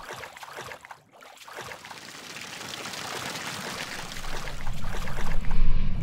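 Sound-effect audio of a logo animation: rushing, flowing water that swells steadily in level after a brief dip about a second in, with a deep rumble joining in near the end.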